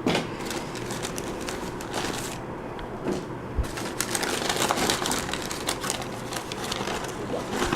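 Rustling and crinkling of a bag and packaging being rummaged through, with many irregular small clicks and taps.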